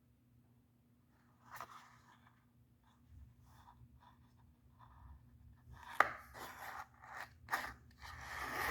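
Hands handling a box and its contents: scattered taps, rubs and scrapes, sparse at first and busier and louder in the second half, with a sharp knock about six seconds in.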